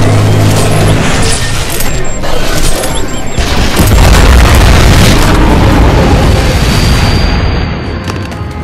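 Cinematic explosion booms layered over a music score. The heaviest boom comes about four seconds in, and the sound dies down near the end.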